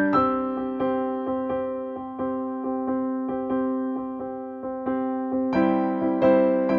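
Background music: a piano-like keyboard playing a steady run of sustained notes, growing fuller and brighter about five and a half seconds in.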